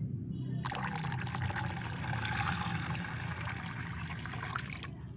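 Water, with bloodworms in it, poured from a plastic tub into a plastic funnel strainer over a bucket, splashing steadily. The pour starts a little under a second in and cuts off shortly before the end.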